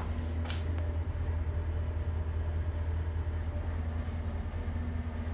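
2007 GMC C4500 truck engine idling, a steady low hum heard from inside the truck's enclosed work box, with a single light click about half a second in.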